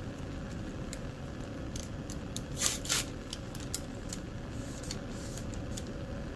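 Paper wrapper of a sterile cotton swab being torn and peeled open: a few short crinkling rips, the loudest two about halfway through.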